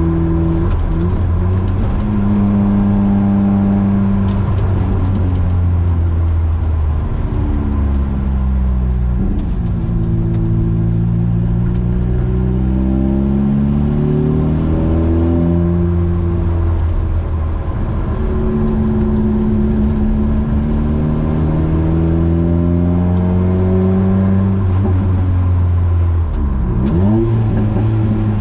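Opel Speedster's 2.2-litre four-cylinder engine through a decat Larini exhaust and stainless back box, pulling up through the revs and dropping back again and again as the gears change, with brief sharp dips in revs a few times.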